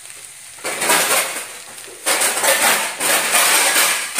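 Spatula scraping and stirring noodles around a hot steel frying pan, in two spells of scraping: the first about a second long, the second starting about two seconds in and going on longer.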